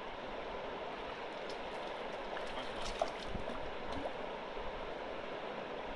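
Shallow river water flowing and rippling steadily, with a few faint small splashes and ticks in the middle.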